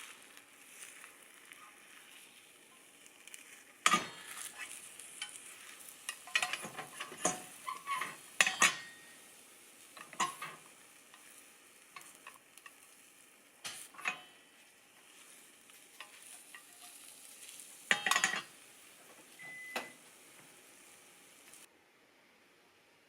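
Food sizzling in a frying pan, with a utensil scraping and clinking against the pan several times. The sizzle cuts off suddenly near the end.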